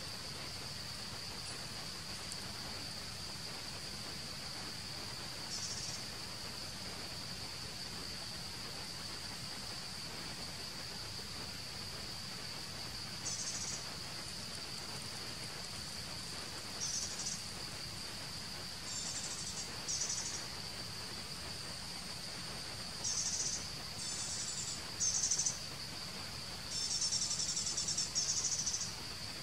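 Forest insects: a steady, high-pitched insect drone, joined by short bursts of higher chirping that come more and more often toward the end.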